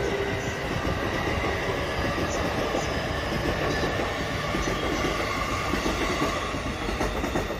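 JR East E233-series electric commuter train departing and running past close by: a steady rumble of wheels on rails and running gear.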